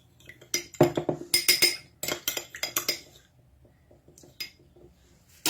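A metal spoon stirring a drink in a glass, clinking quickly against the sides for about three seconds, then two single clinks near the end.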